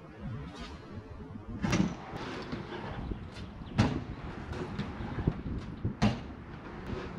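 BMX bike riding on a concrete skatepark bank: tyres rolling, with three sharp thumps of the wheels landing about two seconds apart and a few lighter clacks in between.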